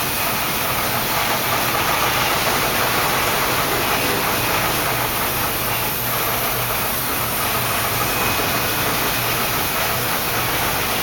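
Steady hum and hiss of factory machinery running, with no distinct strokes or changes.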